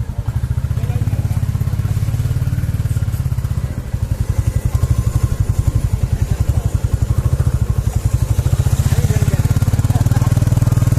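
2021 Royal Enfield Classic 350's single-cylinder engine idling with a steady, even exhaust thump, growing a little louder about four seconds in and again near the end.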